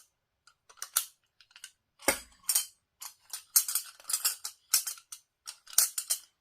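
Light metallic clicks and scrapes of a Campingaz Globetrotter stove being unscrewed by hand from its pierceable gas canister, with a duller knock about two seconds in.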